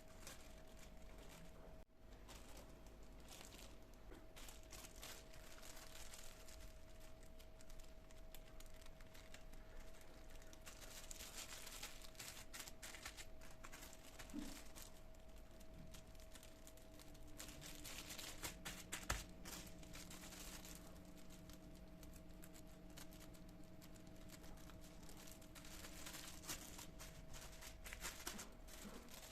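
Faint kitchen handling sounds: rustling and light clicks, over a thin steady hum.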